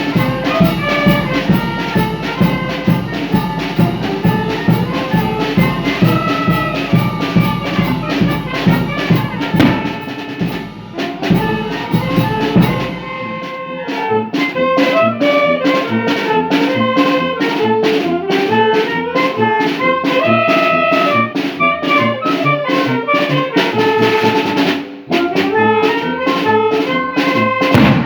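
Brass band music with wind instruments and drums playing a rhythmic tune. About halfway through, the bass and drums drop out and the brass melody carries on alone.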